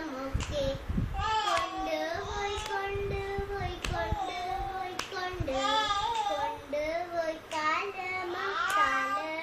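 A Malayalam poem sung in a high voice, the melody gliding between held notes. Sharp taps fall at a steady beat of about one a second.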